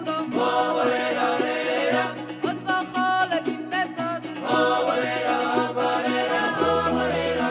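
Georgian folk ensemble singing in several parts, young mixed voices accompanied by plucked panduri lutes and a bass. A low bass note is held near the end.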